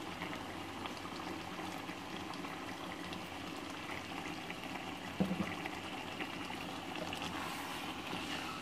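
Pot of mutton and cabbage curry bubbling and sizzling as oil is poured in at the start, with a short knock about five seconds in.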